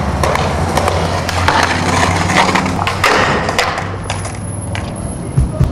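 Skateboard wheels rolling over rough concrete, a steady gritty rumble scattered with sharp clicks and knocks from the board. A song's thumping beat comes in right at the end.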